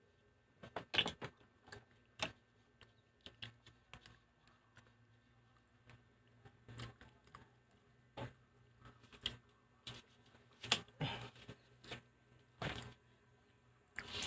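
Faint, irregular clicks and light knocks of eating at a table, such as mussel shells and utensils being handled, with a few short rustling or scraping noises.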